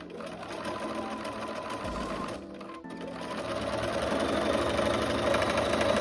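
Bernina B 530 electronic sewing machine running at speed, stitching through knit fabric. It stops briefly about two and a half seconds in, then runs again, louder, and cuts off at the end.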